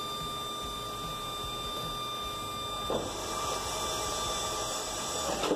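Jet engine's external clamshell thrust reverser doors being stowed by their actuators, over a steady hum. There is a knock about three seconds in, a hiss while the doors swing shut, and a sharp clunk near the end as they close.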